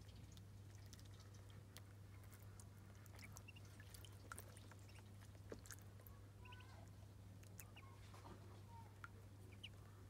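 Muscovy ducklings dabbling and paddling in a tub of water: faint scattered clicks and small wet ticks, with a few very short, soft peeps, over a steady low hum.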